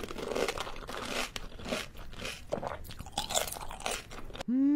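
Close-up crunching and chewing of crisp pani puri shells, a dense run of crackles and snaps. Near the end a voice starts a rising, then steady 'mmm' of enjoyment.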